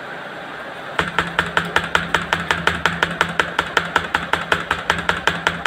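Typing on a Dell laptop keyboard: a fast, even run of key clicks, about eight a second, starting about a second in. A steady low hum runs underneath.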